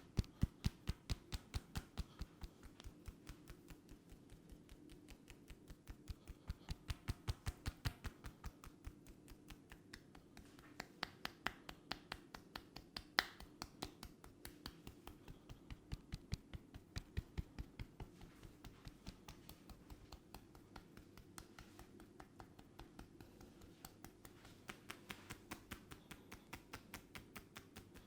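Sharp percussive hand taps and snaps of a barber's head massage: a quick run of clicks, about four a second, coming in runs that swell and fade, over a faint steady hum.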